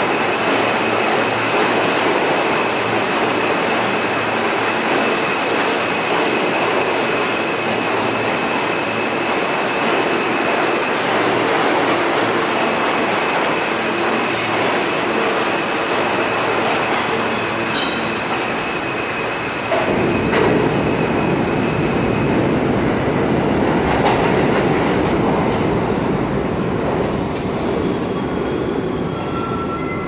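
New York subway trains running through the station: a steady rumble and rattle with a high whine from a moving R160 train, then about two-thirds of the way in a deeper, louder rumble as an R68 train comes by close to the platform. High wheel squeal sounds near the end.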